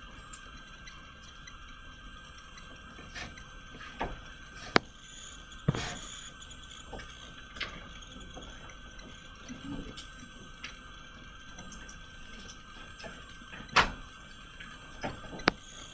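Quiet room tone with a faint steady hum and a thin high tone, broken by a handful of sharp clicks and knocks, most of them about four to six seconds in and near the end.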